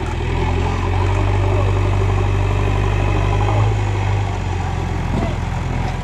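JCB backhoe loader's diesel engine running steadily with a strong low hum while the front loader bucket works the soil.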